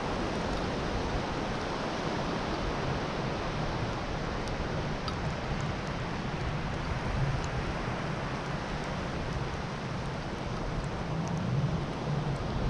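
Steady wash of sea surf with wind, swelling a little about two-thirds of the way through and again near the end.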